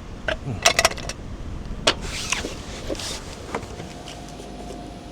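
A few sharp clicks and knocks of small objects being handled, then a soft hiss, over a steady low background rumble.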